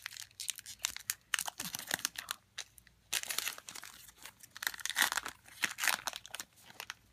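Wrapper of a Topps football trading-card pack crinkling and tearing as it is ripped open by hand, in several bunches of rustling that die down near the end.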